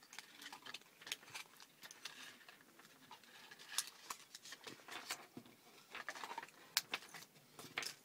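Irregular light clicks and scratchy rustles of hands untangling the orange cable of Veho Z-1 earbuds and handling its clear plastic packaging, with a few sharper ticks.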